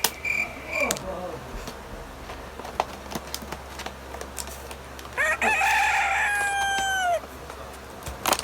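A rooster crows once, about five seconds in: one held call of about two seconds that drops in pitch at its end. Scattered small clicks of handling run under it.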